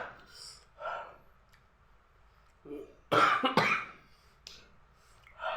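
A man coughing a dry cough: short throaty bursts, the loudest two sharp coughs close together about three seconds in, with throat clearing and breathy sounds around them.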